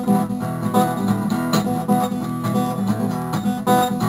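Acoustic guitar strummed in a steady rhythm, an instrumental passage between sung verses of a folk song.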